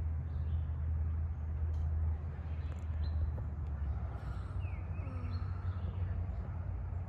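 A steady low hum runs throughout, with a few faint bird chirps over it.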